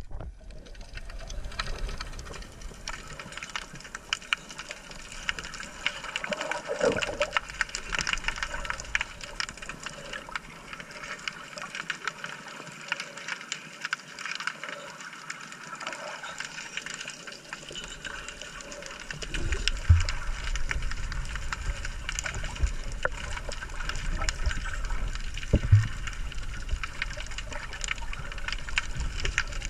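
Underwater sound picked up by a camera in a waterproof housing: a steady crackle of fine clicks over a muffled water hiss. About two-thirds of the way through it grows louder, with low churning water and a few dull knocks.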